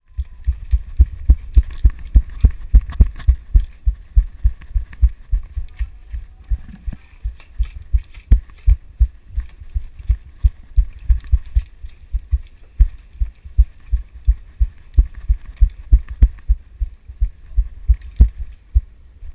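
Regular heavy thumps, about three a second, with light rattling and clicking: footsteps jolting a body-worn camera as its wearer walks, with gear shaking on the belt.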